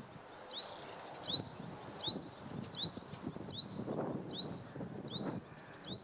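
Japanese tit (Parus minor) singing its spring song: a phrase of a rising whistle followed by two short, very high notes, repeated steadily about once every three-quarters of a second. A low background rumble runs underneath.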